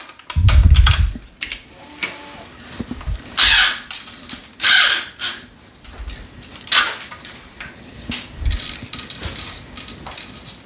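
Tennis string being woven and pulled through a racket's string bed and grommets on a stringing machine: several short hissing rushes of string sliding, with handling clicks between them. A low thump about half a second in.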